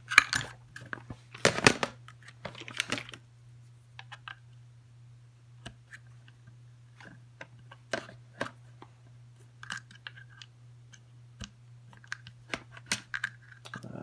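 Clicks and scrapes of a Tacamo Blizzard magfed paintball marker being handled as its takedown pin is worked into place: a few louder clatters in the first three seconds, then scattered light clicks. A steady low hum runs underneath.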